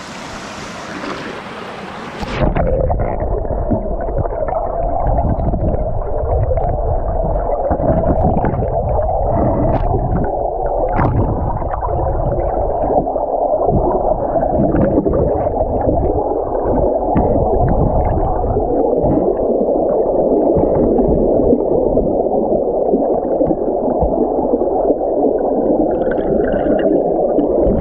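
The rush and gurgle of a creek heard with the camera underwater: a dense, muffled churning with the high end cut off. It switches from the open-air stream sound to the underwater sound about two seconds in, as the camera goes under.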